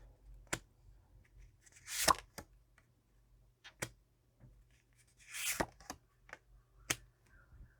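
Tarot cards being handled on a table: a few sharp taps as cards are laid down, and two longer swishes of cards sliding, about two seconds in and again about five and a half seconds in.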